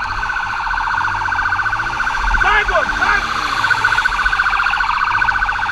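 Police motorbike siren sounding a steady, fast-pulsing tone, with short shouts about two and a half and three seconds in.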